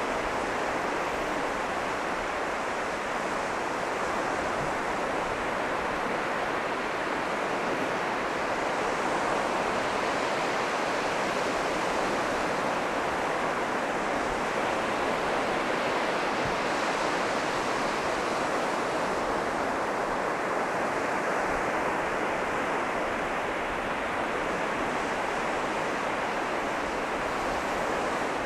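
North Sea surf breaking and washing up a sandy beach: a steady rush of water that swells a little as waves come in.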